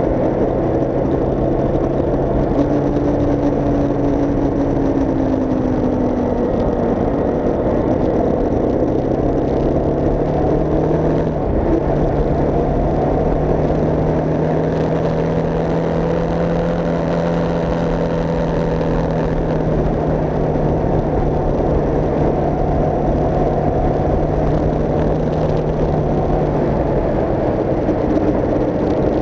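Motorcycle engine running steadily on the move, with wind and road noise; its note steps up in pitch about twelve seconds in and holds there.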